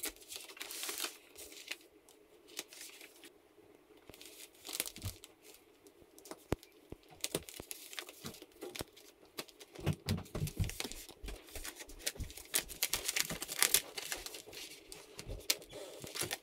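Vacuum-sealed plastic packaging crinkling and tearing in irregular bursts as it is handled and worked open, busier in the second half.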